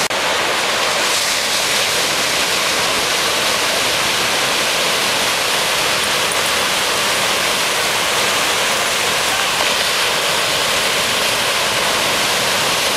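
Rough ocean surf breaking on the shore, a steady hiss of rushing water with no single wave standing out.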